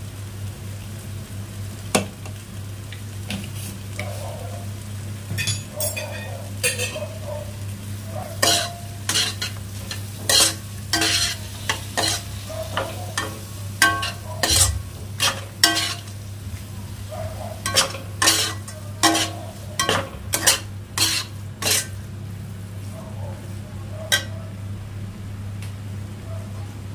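Flat steel spatula stirring and scraping a thick frying tomato-and-spice masala around a black wok (kadhai), the masala sizzling. Repeated quick scrapes of metal on the pan come thickest through the middle. A steady low hum runs underneath.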